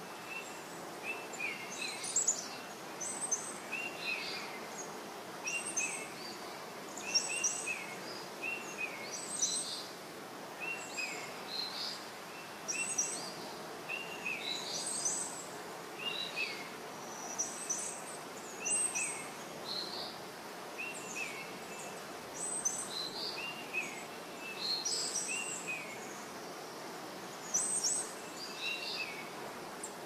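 Small birds chirping, short high calls and quick falling notes following one another every second or so, over a steady background hum of outdoor noise.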